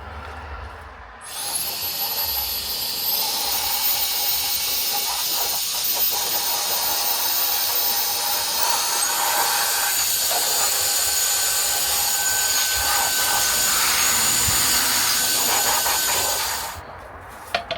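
Cordless electric air duster running: a high-pitched motor whine over a loud rush of blown air. It starts about a second in, the whine steps up in pitch a couple of seconds later, and it cuts off shortly before the end.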